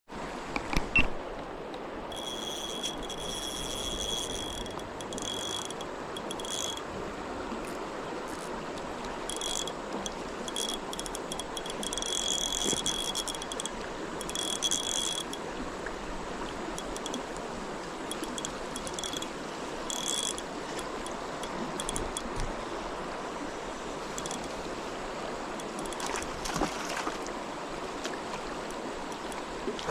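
Stream water running steadily, with high-pitched ringing calls that come and go over it in repeated bouts, mostly in the first half. A couple of sharp knocks about a second in.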